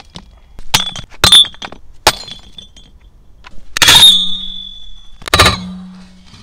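A Blackview BV6200 Pro rugged smartphone struck repeatedly against a glass bottle: about five sharp knocks, the glass ringing after the hardest hits, and the bottle breaking.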